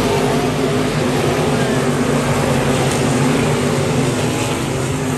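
Race car engines running steadily at speed, a loud continuous drone.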